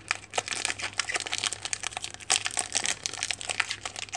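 Wrapper of a trading-card pack crinkling and crackling as hands tear it open, a rapid, irregular run of sharp crackles.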